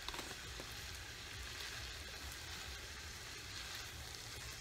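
Diced bacon, hot dogs and onions sizzling faintly in a frying pan, a steady soft hiss, with a few light taps just after the start.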